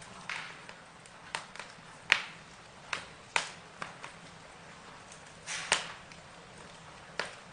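Wood fire crackling: irregular sharp pops and snaps over a faint steady hiss, the loudest a double pop near the end of the middle and a strong crack about two seconds in.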